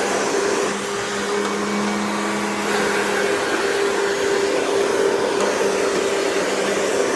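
Hoover Convertible upright vacuum's motor running steadily in straight suction, with its belt and brush roll removed. A steady hum with a higher whine over it; a lower tone in the hum drops out about three seconds in.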